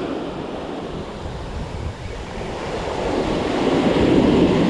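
Surf washing onto the beach, with wind buffeting the microphone; a wave surges in louder over the last couple of seconds.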